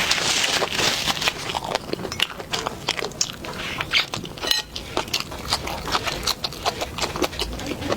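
A person eating close to the microphone: chewing and biting with many short, wet clicks and smacks.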